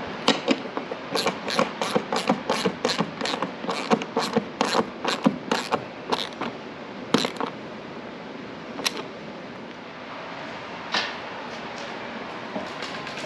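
Hand ratchet clicking in quick strokes, about three or four a second, as it tightens a flange nut onto a bolt. After about six seconds the clicks thin out to a few single ones.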